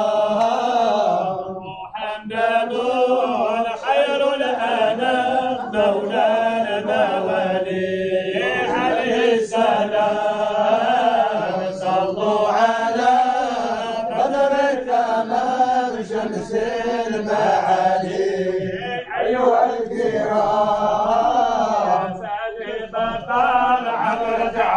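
Voices chanting a Sufi devotional chant of the Alawiya order, a continuous melody that wavers up and down in pitch, with short pauses for breath about 2 seconds in and again near the end.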